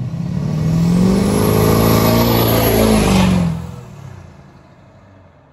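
Pickup truck accelerating past, its engine note swelling as it approaches, loudest for a couple of seconds, then falling away quickly as it drives off.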